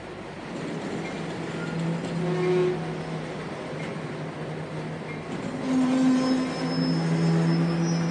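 A train's locomotive running while the train stands waiting. It makes a steady hum with a low held tone that swells about two seconds in and grows louder again from about six seconds on.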